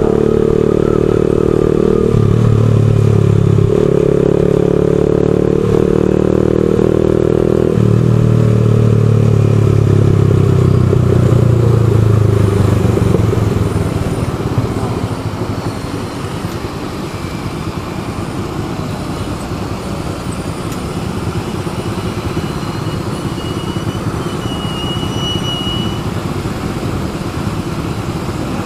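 Motorcycle engine running as the bike rides along, its pitch shifting in steps every couple of seconds. About halfway through the engine sound drops away as the bike slows and stops in traffic, leaving a lower steady running sound.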